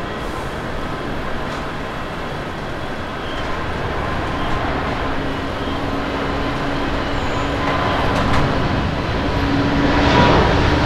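Boeing 777-300ER's twin GE90-115B turbofans at takeoff thrust during the takeoff roll: a steady jet roar that grows louder as the airliner passes, with a low hum joining about four seconds in.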